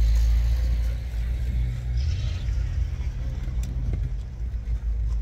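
Steady low rumble of motor vehicle engines running at a roadside.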